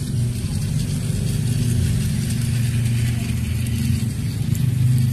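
Battery-operated toy steam train running around its plastic track, its small motor and gears whirring steadily.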